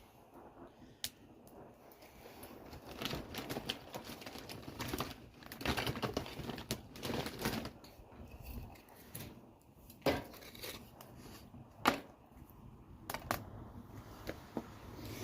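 Fire in a fireplace crackling: irregular snaps and small pops, thickest in the middle, with two single louder pops near the end.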